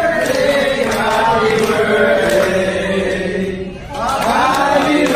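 A roomful of people singing together in unison on long held notes, with a short break near the end before the singing starts up again.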